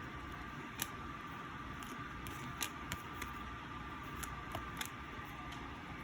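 A few short, sharp clicks and snaps of Topps Chrome trading cards being handled and sorted, over a steady background hiss with a faint steady high tone.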